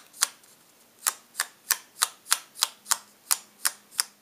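A Colorbox chalk ink pad brushed outward along the edge of a paper piecing in quick short strokes, each a brief scratch of pad on paper, about three a second, with a short pause after the first stroke.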